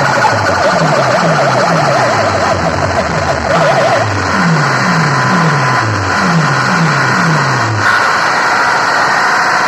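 Loud DJ sound-system playback of an electronic sound-check track: a fast, siren-like warbling tone over a string of quick falling bass sweeps. The warble stops about four seconds in, and the bass sweeps carry on.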